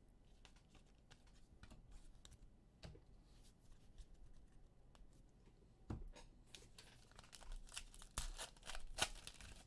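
Faint rustling, crinkling and soft clicks of trading cards and their packaging being handled, sparse at first and busier over the last few seconds.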